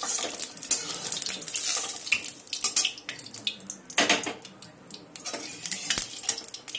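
Hot oil sizzling in a steel wok while a metal spatula scrapes and clinks against it, lifting out fried brinjal pieces. The sizzle and scraping ease off after about four seconds.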